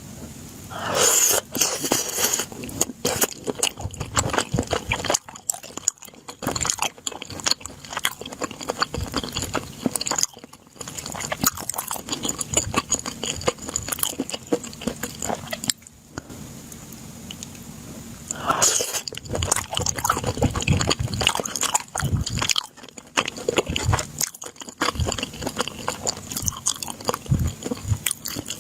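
Close-miked eating: a person biting and chewing food with crisp crunching and wet mouth clicks. There are louder bites about a second in and again about two-thirds of the way through.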